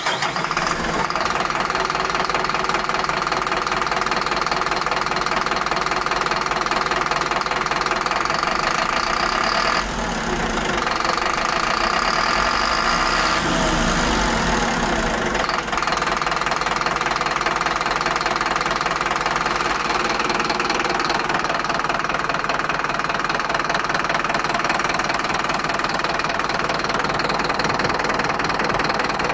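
Mercedes-Benz OM924 LA truck diesel engine idling with a steady diesel clatter. Its note shifts briefly between about ten and fifteen seconds in, then settles back to a steady idle.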